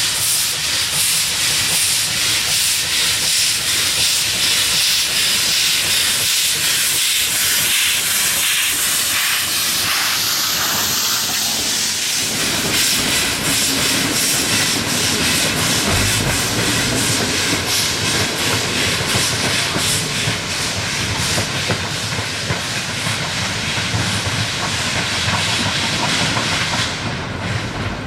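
Steam locomotive venting steam with a loud, steady hiss; from a little past halfway a low rumble joins the hiss.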